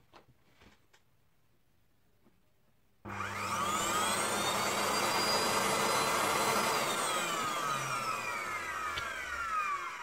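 Electrolux Super Cyclone vacuum cleaner motor switched on about three seconds in: it spins up with a rising whine, runs for a few seconds, then is switched off and winds down with a falling whine. The motor runs, showing it has come through intact.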